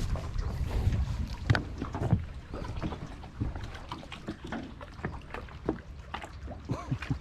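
Small boat being moved about on the water: scattered knocks and bumps against the hull with some splashing. Wind rumbles on the microphone for the first couple of seconds.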